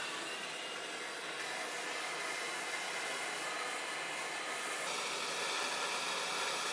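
MAPP gas hand torch burning with a steady hissing flame while brazing the copper joints of a shotgun condenser.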